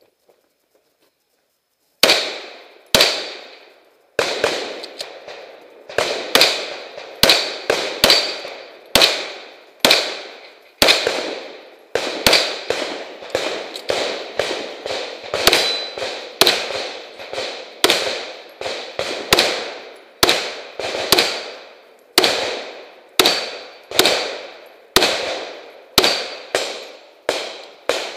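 A long string of gunshots, about one to two a second, starting about two seconds in, each followed by a short echo.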